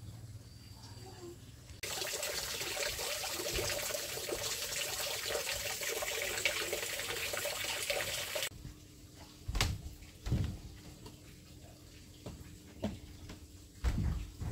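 Water running from a tap. It comes on abruptly about two seconds in, runs steadily for about six and a half seconds, then cuts off, followed by a few dull knocks.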